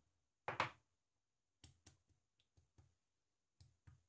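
Filled glass jar tapped down on a towel-covered countertop to settle the pumpkin butter and release air bubbles: a louder soft thud about half a second in, then a scattering of faint, irregular knocks.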